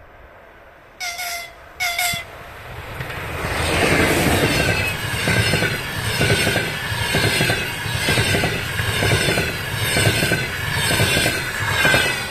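Two short horn blasts from an EP2K electric locomotive about one and two seconds in. Then the locomotive and its double-deck passenger coaches pass close by, loud, with a regular clatter of wheels over the rail joints.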